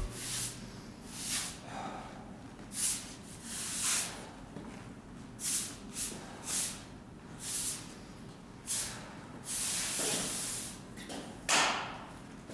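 Straw broom sweeping a bare concrete floor: a string of short swishes, irregular at roughly one a second, with one longer sweep late on.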